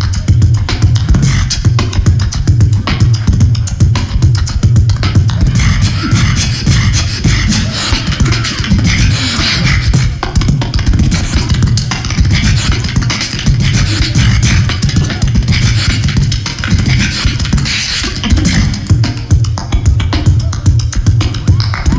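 Very fast live beatboxing into a handheld microphone, played through a stage PA: a dense stream of rapid mouth-made percussion over a strong, unbroken bass.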